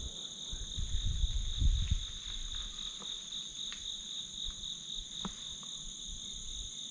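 Steady insect chorus of crickets, a continuous high-pitched trilling drone. A few low rumbling bumps in the first two seconds.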